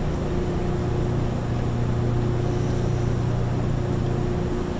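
A steady low mechanical hum with a fainter steady tone above it, over the sound of used engine oil pouring from a plastic drain pan into a metal bucket.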